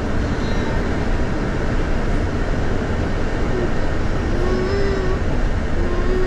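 Steady low rumble of a bus running, heard from inside the cabin, with a couple of brief wavering tones in the second half.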